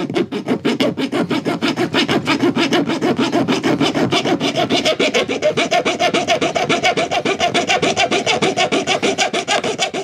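Fine-toothed metal saw of a Victorinox Swiss Tool Spirit X Plus Ratchet multitool cutting a bar of aluminum, in quick, even back-and-forth strokes of about seven a second. About halfway through, a steady ringing tone from the metal joins the rasping strokes.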